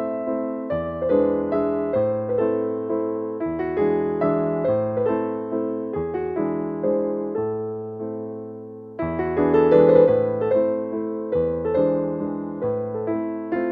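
Background piano music: a calm sequence of chords and melody notes, each note ringing and fading, with a fuller, louder passage starting about two-thirds of the way through.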